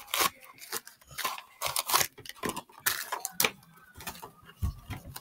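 A small cardboard blind box and its wrapping being handled and ripped open by hand: a string of irregular clicks, rattles and crinkles.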